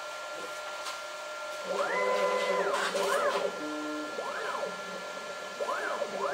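CNC mill's stepper motors whining as it drags a carbide scribe through the copper of a PCB at 1000 mm/min. There is a steady high hum, and from a couple of seconds in comes a series of short moves, each whine rising in pitch, holding, then falling.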